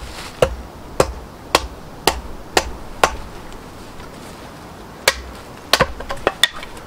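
An axe chopping a small piece of kindling on a log chopping block: sharp wooden knocks about two a second as the blade is tapped in, then after a pause a harder strike about five seconds in and a quick cluster of knocks as the wood splits apart.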